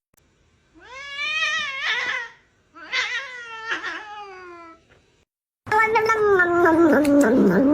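A cat giving two long, drawn-out meows, each rising and then sliding down in pitch, with a short pause between them. About six seconds in, another long pitched sound starts, broken by clicks.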